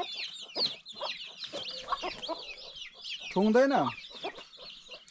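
Domestic chicks peeping continuously in quick high chirps, with a hen clucking among them.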